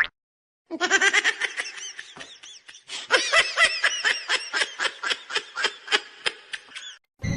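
A person laughing hard: a long run of quick, high-pitched laughs, about four a second, starting about a second in and stopping shortly before the end. A brief rising squeak comes at the very start.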